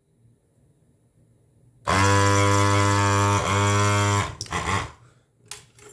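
Desoldering gun's vacuum pump switched on, running for about two and a half seconds as a steady buzzing hum with a short break partway, sucking molten solder out of the board's holes. A couple of short clicks and hisses follow near the end.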